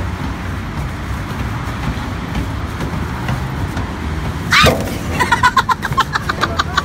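Steady road-traffic noise from the highway below a pedestrian overpass. About four and a half seconds in, a woman gives a loud exclamation, followed by quick, even pulses of laughter.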